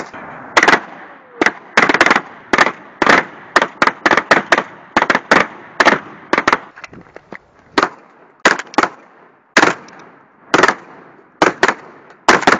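M1014 combat shotguns firing a long, irregular string of blasts, often two or three within a second, each with a short echo, as they are shot at doors to breach them.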